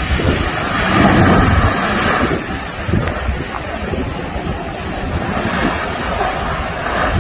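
Strong wind buffeting the microphone, with the rushing jet noise of a Boeing 737 airliner passing close as it lands. The noise swells in the first two seconds, then runs on more evenly.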